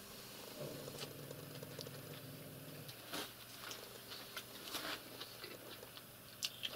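Faint scattered taps and clicks of a cat batting and mouthing a caught mouse on a rug. A low steady hum runs for about two seconds near the start.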